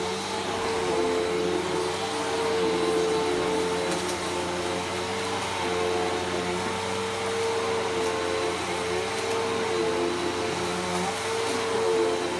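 A Bissell PowerForce Helix Turbo bagless upright vacuum cleaner running steadily, its motor hum wavering slightly in pitch.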